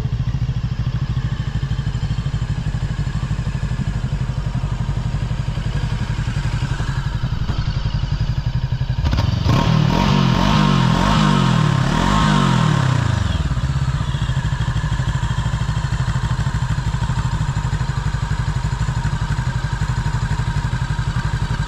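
FKM Expres 500 Racer motorcycle engine idling. About nine seconds in it is revved a few times, the pitch rising and falling for around four seconds before it settles back to a steady idle.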